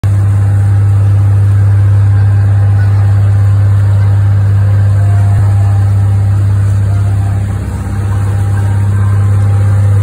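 Motorboat engine running with a steady low drone, over the wash of water along the hull; the drone dips briefly about three-quarters of the way through.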